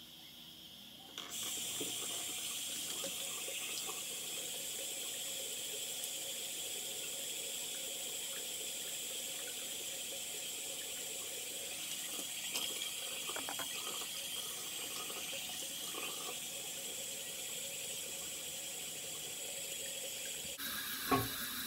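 Bathroom sink tap turned on about a second in and running steadily.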